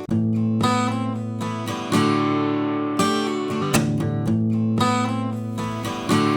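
Background music: strummed acoustic guitar chords, freshly struck about once a second and left ringing.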